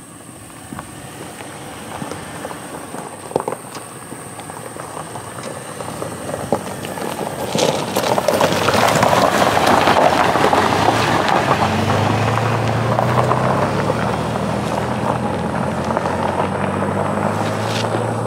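SUV driving down a gravel hill track and passing close by: engine and tyres on gravel grow louder and are loudest about eight to eleven seconds in. A steady low engine drone follows.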